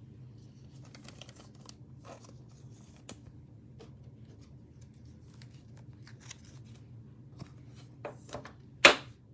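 Faint scratchy rustling and small ticks of a trading card being handled and slid into a clear plastic sleeve, with one sharp click near the end.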